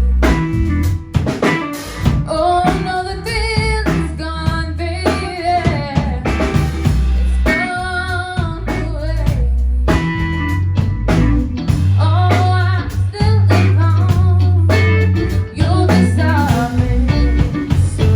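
Live blues-rock band playing: a voice singing over electric guitar and drum kit.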